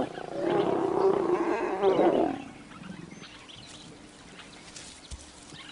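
Lions snarling during mating: a loud, rough growl of about two seconds that then breaks off, leaving a quiet background.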